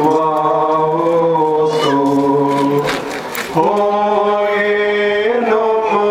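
Malankara Orthodox liturgical chant sung by a group of voices in long held notes that step slowly from pitch to pitch, with a short break for breath about three seconds in.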